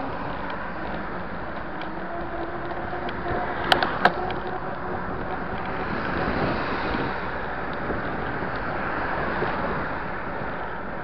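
Steady rush of wind and road noise on a bicycle-mounted camera's microphone while riding in traffic, with passing cars mixed in. Two sharp knocks come about four seconds in.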